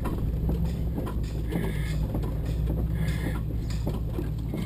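A Jeep Wrangler JK's 3.8-litre V6 heard from inside the cab, running at low speed as it crawls over a rocky dirt trail. Under its steady low drone come scattered knocks and rattles from the body and suspension.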